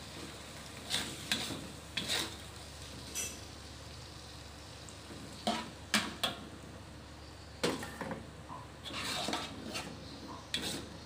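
Metal spatula scraping and knocking against a wok in irregular strokes while a coconut-milk sauce is stirred, with a low sizzle underneath.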